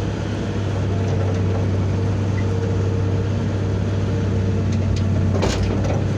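Cat 320B excavator's diesel engine running steadily with a deep even hum, with one short metallic knock about five and a half seconds in.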